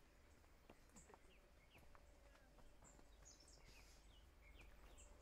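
Near silence: quiet woodland ambience with faint, scattered short bird chirps over a low steady rumble.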